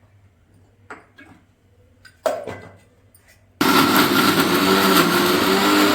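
A couple of knocks, then about three and a half seconds in an electric mixer grinder starts abruptly and runs at high speed, grinding raw turmeric and raw ginger without water.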